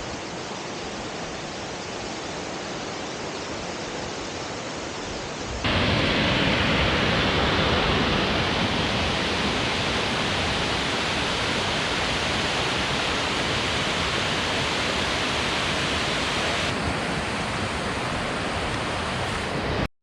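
Waterfall rushing: a steady noise that gets suddenly louder about six seconds in.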